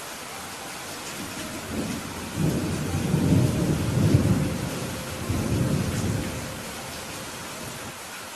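Steady rain falling, with a roll of thunder that builds about two seconds in, rumbles at its loudest midway, and dies away near the end.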